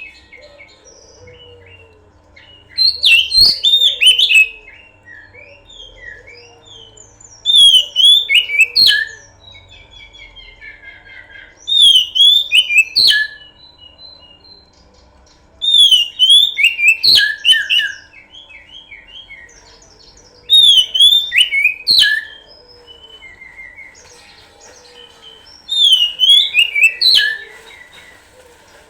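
Oriental magpie-robin (kacer) singing: loud, rapid phrases of sweeping whistles and chirps, each about a second and a half long, repeated six times at regular intervals of about four and a half seconds. Quieter chirping and a faint steady hum fill the gaps.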